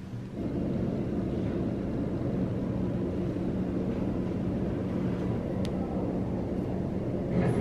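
A steady, low mechanical droning hum that gets louder about half a second in and then holds steady.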